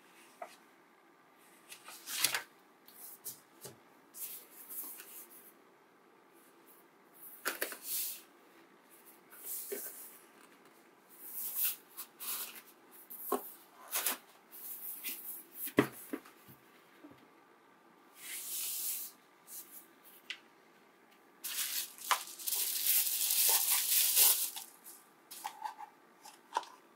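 Close-up handling sounds of an unboxing: paper manual pages turning and rustling, light taps and clicks on the table, and the clatter of small white plastic diffuser parts being picked up. There is a longer rustle near the end.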